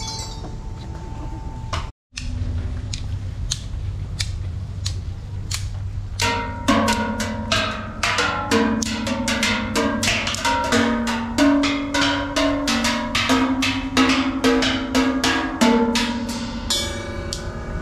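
Steel oil barrels played as drums with sticks, each barrel ringing at its own pitch. Scattered strikes at first, then a quick, busy run of hits from about six seconds in, the pitch jumping between barrels.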